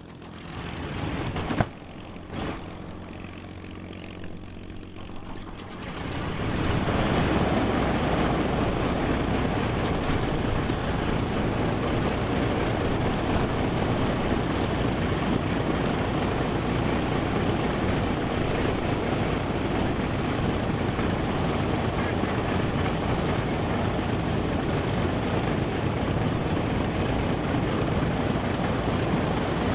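Douglas AD-1 Skyraider's Wright R-3350 radial engine starting. It turns over with a couple of sharp pops about one and a half and two and a half seconds in, catches about six seconds in, and then runs steadily at idle.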